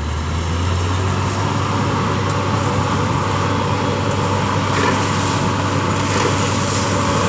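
Borewell drilling rig running steadily, with a strong low hum and a dense rushing noise. From about five seconds in, a hiss grows as compressed air blows water and mud up out of the bore around the drill pipe.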